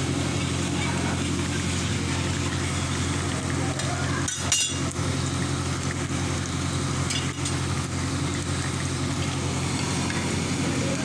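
Momo dumplings deep-frying in a wok of oil, sizzling steadily over a steady low hum. A sharp metal clink of a utensil comes about four and a half seconds in, and a fainter one a few seconds later.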